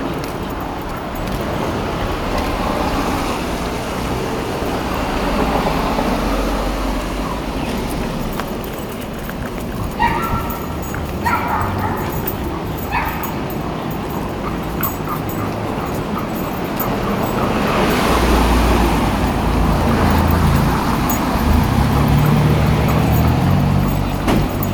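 A French Bulldog breathing noisily as it walks on a leash, with three short high whimpers about ten to thirteen seconds in. A low rumble grows louder in the last few seconds.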